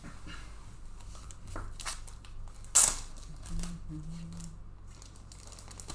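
Plastic card sleeves and team bags crinkling and rustling in the hands as trading cards are bagged, with a few short crackles and one sharp, loud one about three seconds in.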